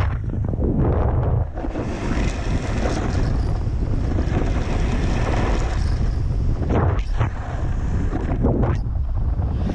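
Wind buffeting a GoPro action camera's microphone in a steady low rumble as the rider moves over the ice, with a broad hiss of sliding over snow from about a second and a half in until a little past the middle, and a few short scrapes near the end.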